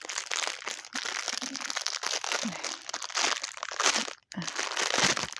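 Plastic parcel packaging being handled and unwrapped by hand: a dense run of crackles and rustles, briefly breaking off about four seconds in.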